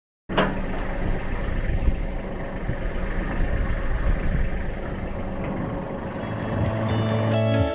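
An engine running steadily after a short silence, with music fading in near the end.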